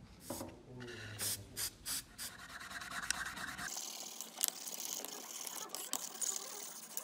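A brush scrubbing the scuffed white plastic back cover of an old iPhone: a steady scratchy rubbing with small ticks, starting about halfway in. Before that there is lighter rubbing and scattered clicks of hand work on the phone parts.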